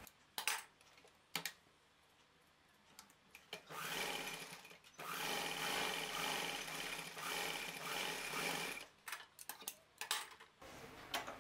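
Sewing machine stitching through cotton fabric, running in two stretches: a short one and then a longer steady run of about four seconds. A few sharp clicks come before and after the runs.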